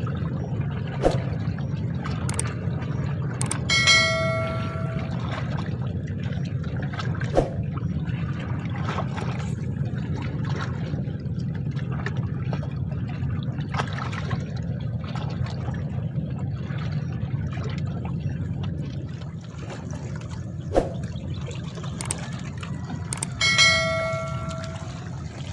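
Steady low rumble of wind and lapping water, with a bell ringing twice, once about four seconds in and again near the end, each ring fading over about a second, and a few sharp knocks in between.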